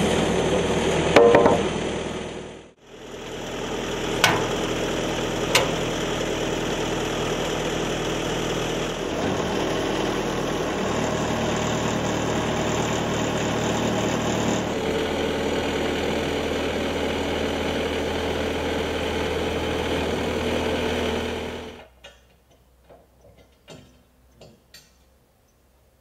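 Portable band sawmill's engine running steadily, with a few sharp knocks over it in the first few seconds. The running noise cuts off abruptly near the end, leaving only faint clicks.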